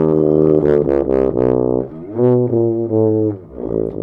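Piston-valve tuba played with its valves pressed only part way, so the notes bend and slide in pitch rather than stepping cleanly; a few phrases with a short break about two seconds in.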